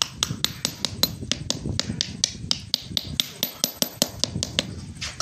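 Rapid light tapping of a metal bolt on a pattern bedded in casting sand, about six sharp taps a second: rapping the pattern loose so it can be drawn out of the sand mould.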